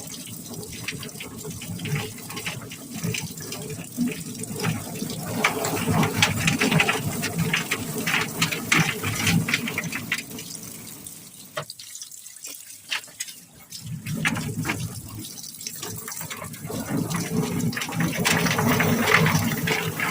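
Rotary drum chicken plucker spinning two wet, scalded chickens under running water, with irregular knocking as the birds tumble against the drum. The sound falls away for a couple of seconds about halfway through, then picks up again; the machine struggles to spin with two birds in it.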